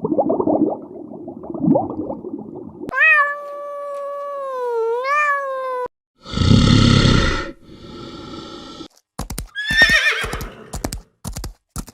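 A string of different animal calls, one after another with abrupt cuts between them. They include a long drawn-out call that dips and rises in pitch, a loud harsh call, and a shorter wavering call near the end.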